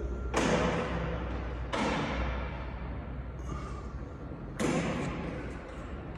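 Three heavy thuds, about half a second in, just before two seconds and past four and a half seconds, each followed by an echoing tail that dies away over about a second, over a steady low hum.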